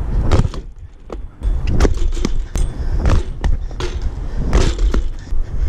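BMX bike rolling on concrete, with a run of sharp knocks and clanks as the bike and tyres hit the ground, over a low wind rumble on the microphone. It comes during a manual-to-barspin attempt that fails.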